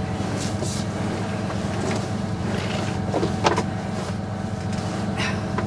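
The sailing yacht's inboard diesel engine running steadily at low revs, with a couple of short squeaks about three seconds in.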